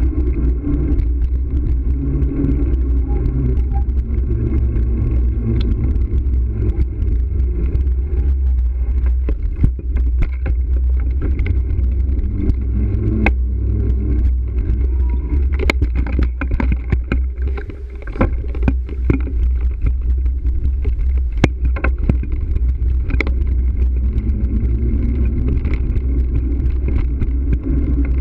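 Riding noise from a bicycle on city pavement: steady low rumble of wind and road on a bike-mounted camera's microphone, with sharp clicks and knocks from the bike over bumps several times.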